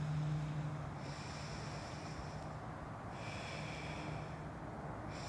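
Slow breaths drawn in and out through one nostril, the other held shut with a finger, during alternate nostril breathing. The air hisses through the nose in stretches of one to two seconds with short pauses between them, over a steady low hum.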